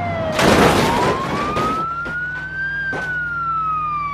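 Battery-operated toy ambulance playing an electronic wailing siren: one tone sweeping slowly up and down. A loud burst of rattling noise comes about half a second in and lasts over a second, and there is a click near the three-second mark.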